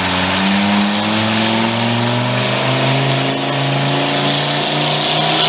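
Antique farm tractor engine running hard under load while pulling a weight sled. Its pitch rises over the first two to three seconds as it gathers speed, then holds steady.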